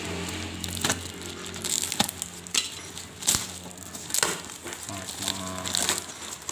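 Cardboard and packing tape being cut and ripped open by hand: a string of irregular sharp crackling tears and snaps.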